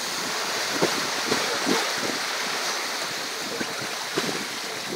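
Wind over the microphone and sea water rushing past the hull of a sailing yacht under way, a steady noise with a few short knocks about a second or two in.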